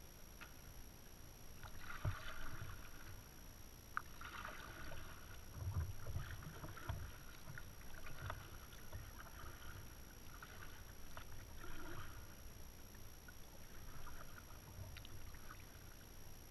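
Kayak paddle strokes in calm water: soft splashes and drips from the blades, coming every second or so. A sharp knock sounds about four seconds in.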